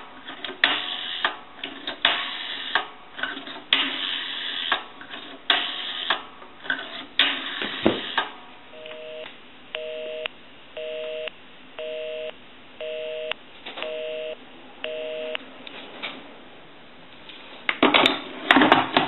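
Rotary dial of a US Navy shipboard telephone being wound and let run back, clicking and clattering as it pulses out a number. Then a telephone busy signal: seven two-tone beeps about one a second, because the line has dialed its own number. Clatter of the handset being handled near the end.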